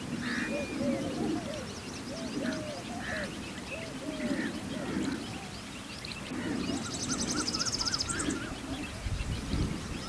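Several birds calling together: repeated low calls and short chirps, with a fast high trill about seven seconds in.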